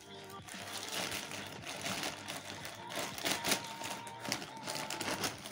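Plastic courier mailer bag being cut open with scissors and then handled, crinkling and rustling in irregular, sharp crackles.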